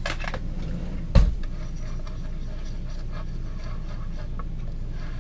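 Beer batter being stirred in a bowl: soft scraping and light tapping of the utensil, with one sharp knock about a second in. A steady low hum runs underneath.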